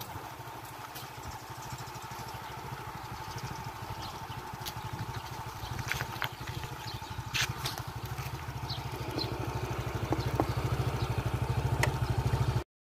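Small motorcycle engine running with a steady low putter that grows gradually louder, with a few light clicks over it.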